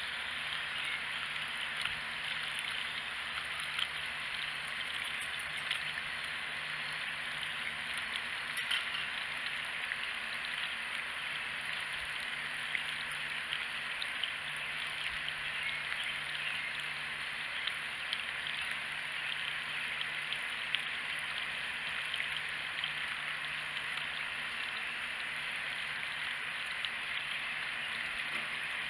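Water from a garden hose running steadily into a plastic watering can, an even splashing hiss with scattered small drip ticks.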